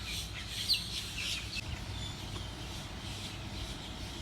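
Bird calls: a few short, high, falling chirps in the first second and a half, then fewer, over a steady low rumble.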